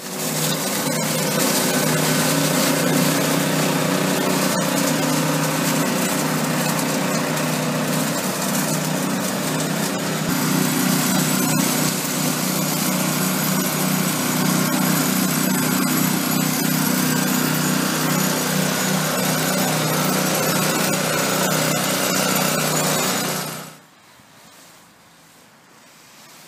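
Formula VAC 35 mini leaf vacuum running steadily, its small engine humming under the rushing air of the suction fan; it cuts off suddenly about 23 seconds in.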